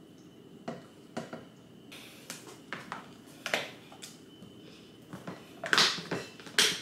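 Kitchenware handling: a spoon and a metal pot knocking and scraping against a glass food container, in scattered clinks and clicks. Two louder clacks come near the end, as the container and its snap-on lid are handled.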